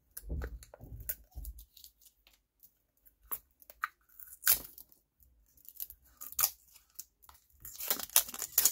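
Packaging being handled and torn open, a string of short rips and crackles that grows busiest near the end.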